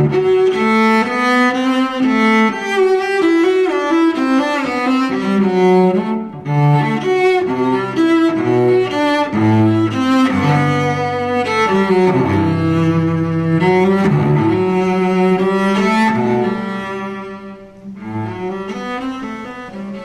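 Instrumental music with sustained, overlapping melodic notes in a low bowed-string register. It drops to a much softer passage about sixteen seconds in and carries on quietly.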